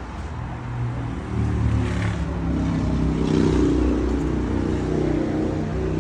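A car engine running, growing louder from about a second in and then holding steady, with two short hisses partway through.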